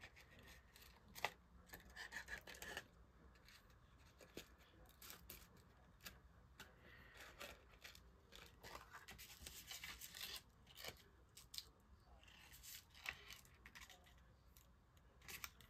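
Faint rustling, scratching and small clicks of a paper card being handled while cord is wrapped around it and pulled tight.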